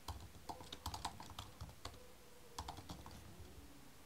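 Computer keyboard typing: irregular flurries of keystroke clicks, most in the first second and a half and another quick run a little past halfway.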